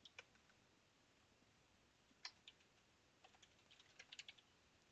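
Faint computer keyboard keystrokes: a few scattered clicks, then a quick run of typing from about three seconds in.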